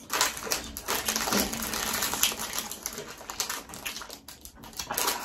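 Plastic snack wrapper crinkling as it is peeled open by hand, a dense run of crackles.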